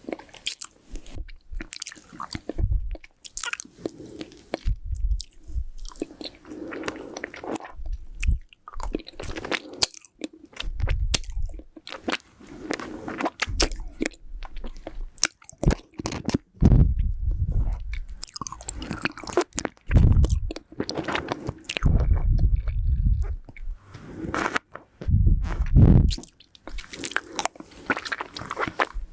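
Close-miked mouth sounds of a lollipop being sucked and bitten: wet clicks, crackles and crunches of hard candy. Puffs of nose breath hit the microphone several times as low blowing thuds.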